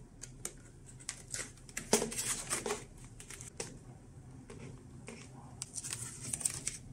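Small clicks and scrapes of a plastic propeller and a rubber band being handled, as the band is stretched over the propeller hub on a small electric motor to hold the propeller in place.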